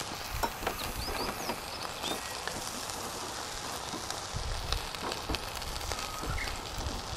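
A steady hiss with many scattered small crackles and clicks: an outdoor barbecue grill, with a kitchen knife scoring chicken wings in a crosshatch cut.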